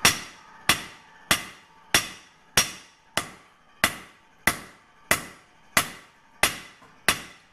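Hand hammer striking red-hot leaf-spring steel on an anvil: about twelve even blows, one every two-thirds of a second, each with a short ring. This is the final pounding that thins the edge of the blade.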